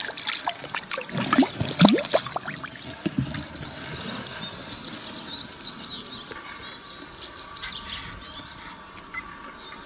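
Water splashing and gurgling close by for the first three seconds or so, loudest about two seconds in. After that, small birds chirp steadily at a high pitch.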